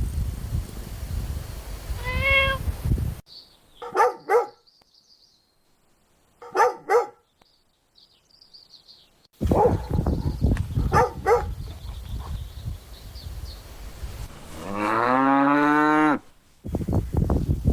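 Cow mooing once in a long, deep call near the end, after a string of short animal calls, some in quick pairs, over a noisy background.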